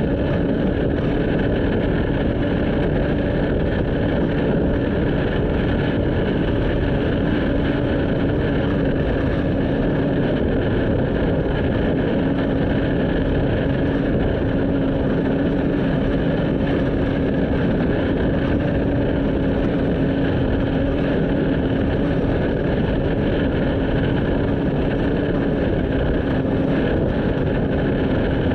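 Motor vehicle driving at a steady speed: a constant engine drone with a steady hum and road noise, unchanging throughout.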